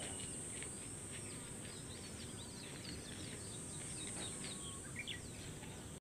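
Small birds chirping and calling in many short, quick notes over a steady high-pitched insect drone and a low, even background rumble.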